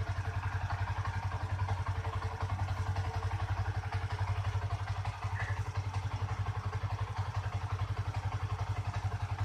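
Yamaha MX King 150's single-cylinder four-stroke engine idling steadily with an even, fast pulse, fully hot after a 160 km nonstop ride.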